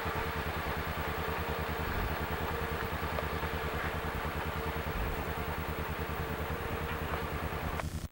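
Steady car engine and road noise with a fine, even low pulsing and a faint steady hum. It cuts off abruptly at the very end as the recording stops.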